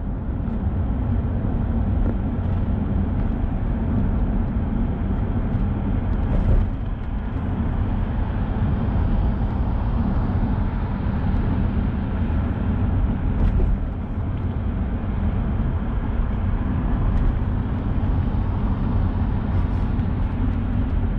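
Steady road and engine noise heard from inside a moving vehicle at highway speed, mostly a low rumble.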